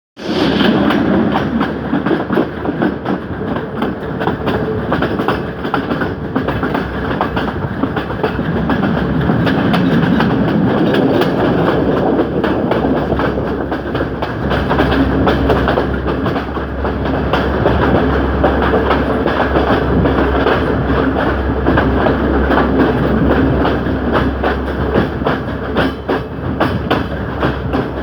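Colombo–Badulla passenger train running, its wheels clicking and clattering over the rails above a steady rumble.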